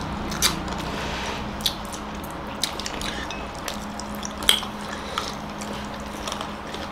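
People eating by hand: chewing and lip smacks, heard as scattered short sharp clicks about once a second, over a steady low hum.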